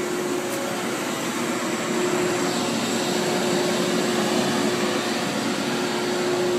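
Steady whirring hum of running machinery with one constant mid-pitched tone through it, getting slightly louder about two seconds in.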